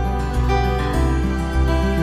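Soft background music, gentle and new-age in style, with sustained notes over a steady low pulse.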